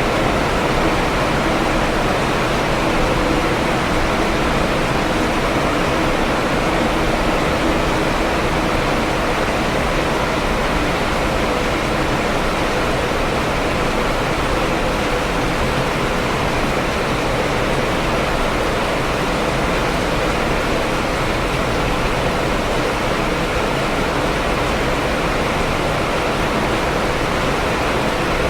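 Steady heavy rain, an even hiss that doesn't change.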